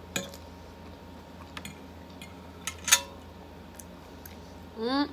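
A metal fork clinking against a plate as food is gathered: a few sharp clinks, the loudest about three seconds in. A short hummed voice sound comes near the end.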